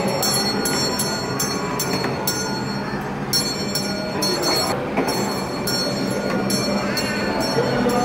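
Kiddie train ride running around its small circular track: a steady hum with the rolling noise of its wheels on the rails.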